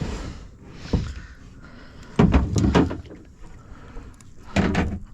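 A series of hollow knocks and thumps, the loudest a rapid cluster about two seconds in and another shortly before the end.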